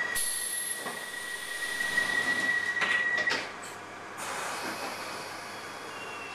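Piccadilly line tube train's door-closing warning, a steady high beep tone held for about three seconds, ending as the sliding doors shut with a couple of knocks. The stationary carriage hums and rumbles afterwards.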